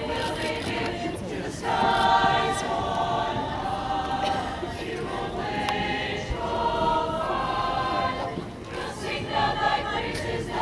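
A choir of mixed male and female voices singing the school alma mater in long held phrases.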